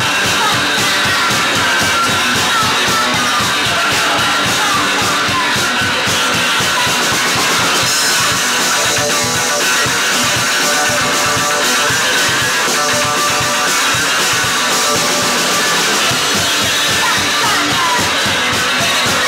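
Rock band playing: strummed guitar over a drum kit, loud and steady throughout.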